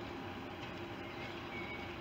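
Diesel locomotive's engine running steadily as it approaches hauling a train of carriages.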